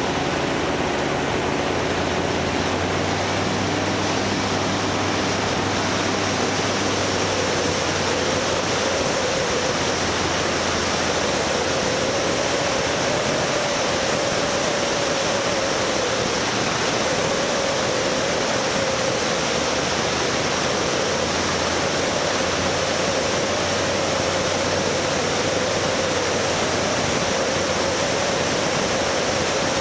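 A vehicle engine drones under a steady rushing noise, its pitch wavering gently up and down.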